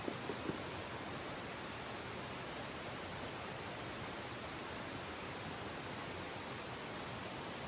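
Steady, even rushing background noise outdoors, with a few light knocks in the first half second.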